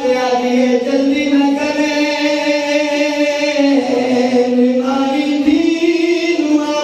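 A man chanting a slow, drawn-out melodic line into a microphone, holding each note for a second or more with gradual shifts in pitch and a step up about five seconds in: the sung recitation of a zakir at a Shia mourning gathering.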